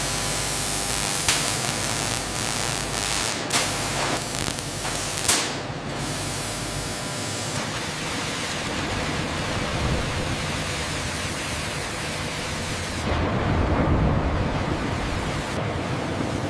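Continuous hissing and rumbling industrial machinery noise, with three sharp knocks in the first six seconds and a deeper rumble swelling up a few seconds before the end.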